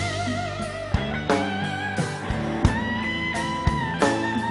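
Live band playing an instrumental passage: a held, vibrato-laden lead melody over guitars, bass and a steady drum beat.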